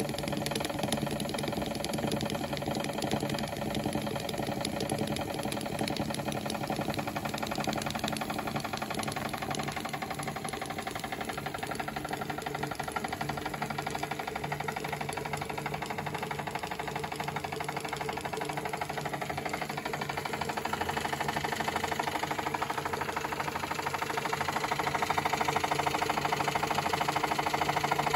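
Märklin 4097/7 toy live steam engine running fast, its small horizontal cylinder and flywheel making a steady rapid clatter. It gets louder over the last third.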